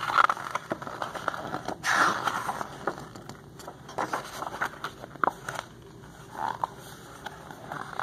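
Pages of a large picture book being turned and handled: irregular paper swishes and rustles with a few small clicks, the loudest swish about two seconds in.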